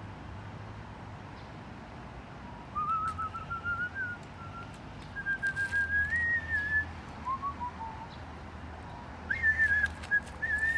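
A man whistling a slow, wavering tune in long held notes, beginning a few seconds in, over a steady low hum.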